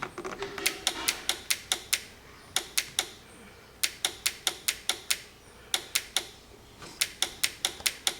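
1997 Toyota RAV4 horn relay (86530-20070) chattering: rapid sharp clicks, about five a second, in uneven bursts with short pauses. This relay is the owner's identified culprit for the ticking, on a car that otherwise gives no dash lights or horn.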